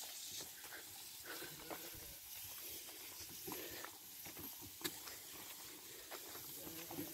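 Faint, irregular footsteps on a dirt path, with a soft, even hiss behind them.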